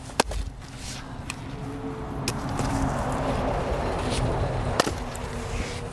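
Fiskars splitting axe striking and splitting a log round on a chopping block: three sharp cracks about two seconds apart, the first the loudest. A passing vehicle's hum swells and fades through the middle.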